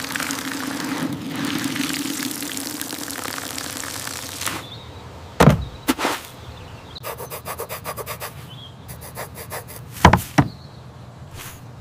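Cartoon sound effect of water pouring from a watering can onto soil: a steady splashing hiss lasting about four and a half seconds. It is followed by two soft thumps and a quick run of rubbing strokes as the wet soil is patted down, then two more thumps near the end.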